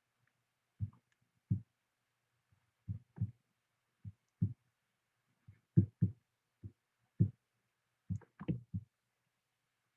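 A series of short, soft low thumps at irregular intervals, about fifteen in all, with a cluster of several close together near the end, over a faint steady hiss.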